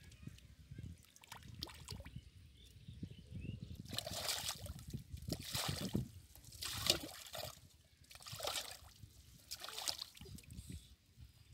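Muddy water sloshing and splashing as hands and a bowl dig and scoop in a shallow mud pond: softer movement in the mud at first, then about five splashy bursts from about four seconds in.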